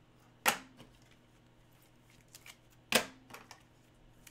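Trading cards being handled and flipped through, with two sharp card flicks, about half a second in and again about three seconds in, and a few fainter ticks between them.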